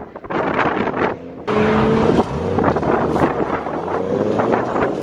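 Wind buffeting the microphone, then, about a second and a half in, a Lexus IS300 drift car's engine running hard as the car drifts through a corner, its pitch holding and then rising and falling.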